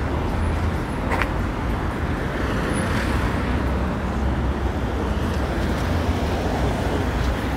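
City street traffic: cars driving past on a multi-lane road, a steady low rumble of engines and tyres.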